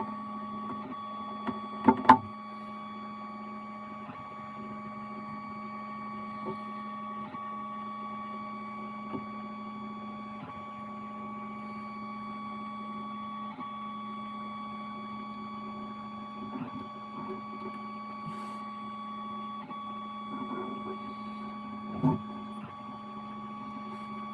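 Steady machine hum with several fixed tones, and a few light ticks; two sharp knocks, about two seconds in and near the end, are the loudest sounds.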